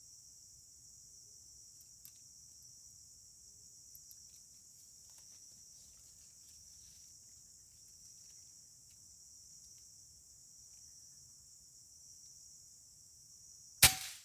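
Steady high-pitched insect chorus, crickets, with a few faint ticks. About a second before the end, one sharp loud shot from the hunter's air rifle.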